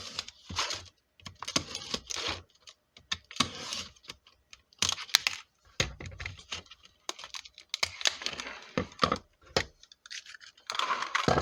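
A dollar-store flashlight's packaging being torn open and handled: irregular bursts of tearing and rustling mixed with sharp clicks.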